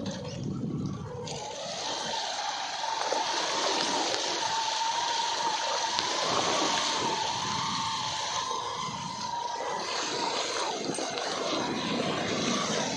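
Floodwater splashing and sloshing as a vehicle pushes through it, starting about a second in, with a steady, slightly wavering whine running underneath.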